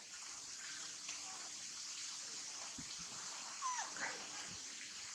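A baby monkey gives a short squealing whimper that slides down in pitch, about three and a half seconds in, with a few fainter squeaks around it over a steady hiss.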